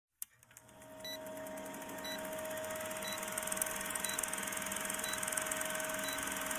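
Old-film countdown sound effect: a film projector running, with hiss and a fast fine flutter, a steady hum, and a short tick once a second. It fades in over the first second.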